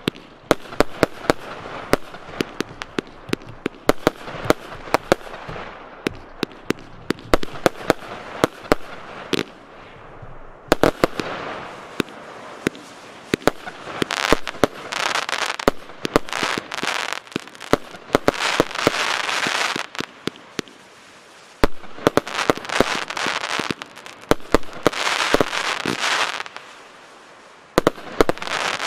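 Piromax PXC203 Hadron 100-shot, 25 mm consumer firework battery firing: a rapid string of sharp reports from shots launching and bursting. From about a third of the way in, the reports are mixed with stretches of dense crackle from the bursting effects.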